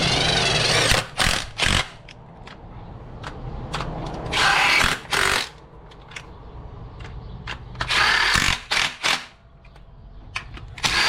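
Power tool running in several short bursts of about a second each, with quieter gaps between, driving bolts home on an LS engine.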